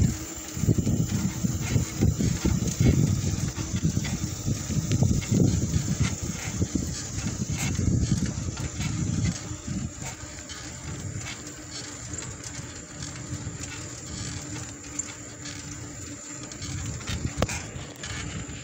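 Riding a bicycle along an asphalt street: wind rushing over the microphone and tyre noise, with scattered small clicks and rattles. The rushing is louder in the first half and eases later on.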